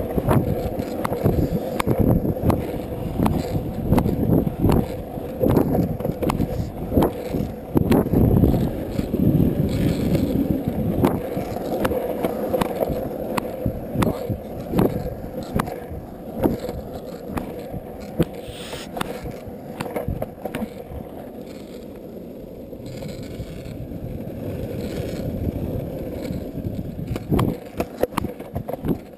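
Longboard wheels rolling fast down a paved hill, a continuous rumble and hum with frequent sharp clicks as the wheels run over cracks and grit, growing quieter over the last third as the board slows.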